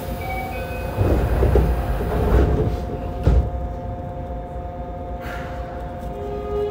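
Yokohama Municipal Subway 3000A car at a station stop: the doors slide shut, ending in a thud about three seconds in, over a steady electrical hum. Near the end the Mitsubishi GTO-VVVF inverter begins its rising whine as the train starts to move off.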